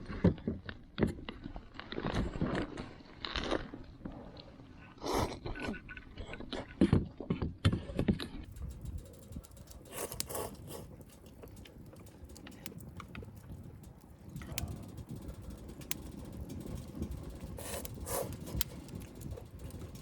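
Scraping, knocking and clattering of hard objects being handled, busiest over the first several seconds, then a steady low noise with occasional taps and scrapes.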